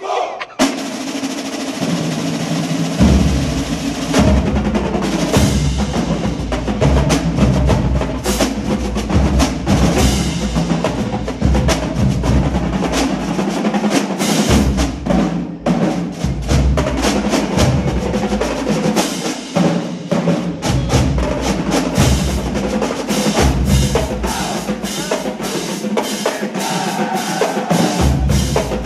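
Marching drumline playing a fast cadence on snare drums, tenor drums, bass drums and cymbals. Snare rolls and rapid strokes open it, the deep bass drums join about three seconds in, and there is a short break in the middle.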